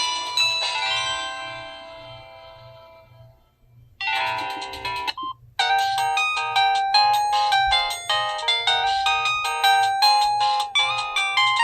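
Samsung SGH-T309 flip phone playing its built-in ringtones through its speaker. One tune dies away over the first few seconds, a short phrase of another starts about four seconds in and cuts off abruptly after about a second, then a new, quick melody begins and keeps playing.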